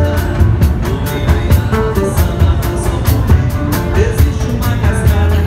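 Background music with a steady beat: drums, a heavy bass line and melodic instruments.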